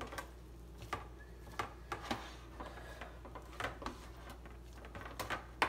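Hands pressing and patting a raw meatloaf mixture on a plastic plate: irregular soft squishes and taps, with a sharper click near the end.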